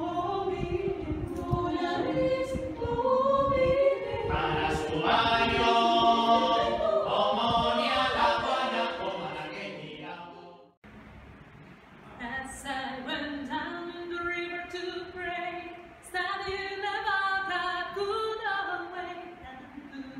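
Mixed a cappella choir singing in harmony, swelling to its loudest in the middle and then dying away about halfway through. After a brief break the choir sings again, more softly, in shorter notes.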